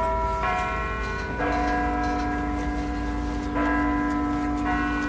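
Large tower bells of the Peace Tower carillon playing a slow tune. A new bell is struck about once a second, each ringing on over the next, with one longer gap in the middle. A low wind rumble runs on the microphone underneath.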